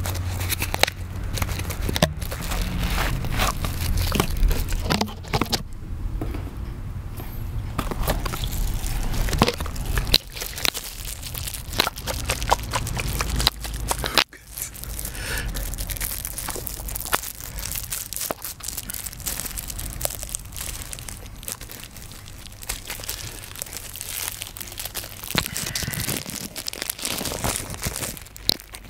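Clear plastic packaging crinkling and crackling as it is handled and opened by hand, a dense run of small sharp crackles throughout.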